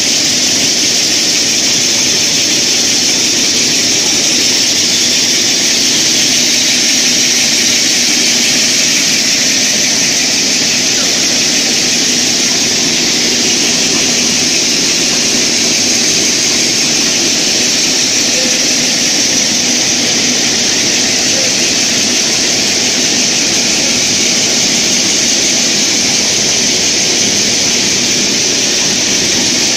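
Steel wire drawing machine running: capstan drum turning and wire being pulled through the powder-lubricated die box. It makes a loud, steady running noise with a strong high hiss over a low hum.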